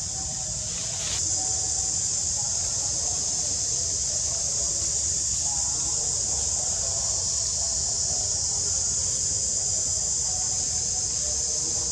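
Insects buzzing in a steady, continuous high-pitched drone, growing louder about a second in.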